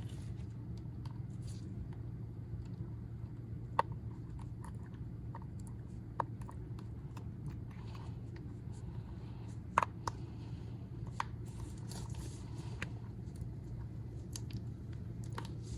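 Scattered light clicks and taps from handling a phone and small repair tools at a workbench, over a steady low hum.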